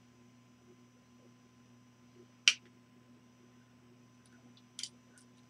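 Two sharp clicks from a small drill index case being handled, one about two and a half seconds in and a smaller one near the end, with a few faint ticks. A steady electrical mains hum runs underneath.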